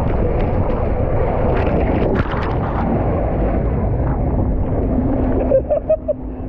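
Wind buffeting the microphone: a loud, steady low rumble. A few short pitched sounds come in near the end.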